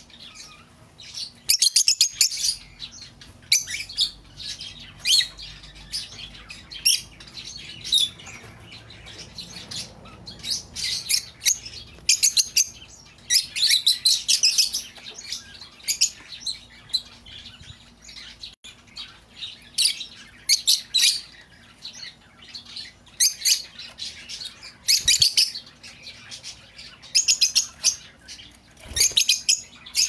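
Rosy-faced lovebirds calling: repeated bursts of high-pitched chirping chatter every second or two.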